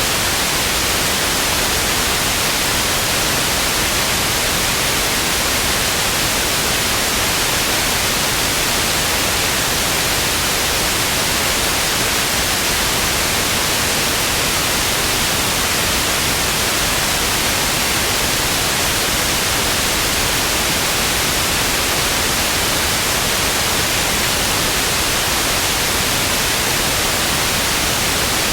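Television static: a steady, loud, even hiss weighted toward the high frequencies, unchanging throughout.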